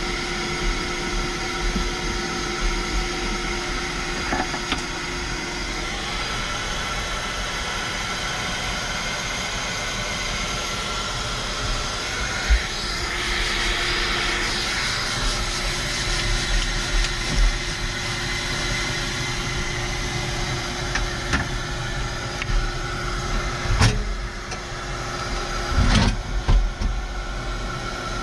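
An engine running steadily with an even hum, and a few knocks and rustles from cleaning in the cab. There is a brief hiss about halfway through, and sharp knocks near the end.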